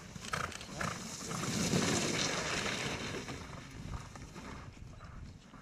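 Horse cantering through snow while towing a snowboarder: a rush of hoofbeats and the board scraping the snow that swells to its loudest about two seconds in, then fades.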